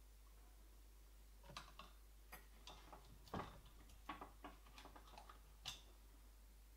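About a dozen faint, irregular clicks and taps, starting about a second and a half in, from a soldering iron and a wire being worked against a digital decoder's pins on a slot car's metal chassis.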